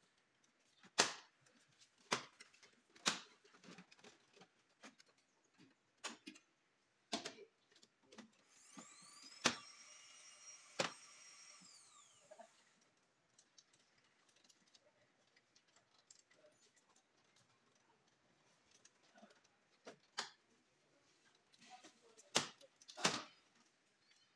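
Scattered clicks and knocks of tools, screws and plastic trim being handled during bumper removal. About eight seconds in, a small power driver runs for about four seconds, its whine rising at the start and falling as it stops.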